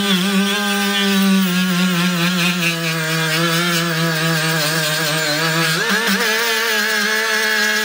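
Milwaukee M12 Fuel brushless right-angle die grinder running with a coarse sanding disc pressed onto an anvil, sanding off rust and paint. It is a steady, high motor whine whose pitch wavers as the disc bears on the metal. About six seconds in, the pitch dips briefly, then settles a little higher.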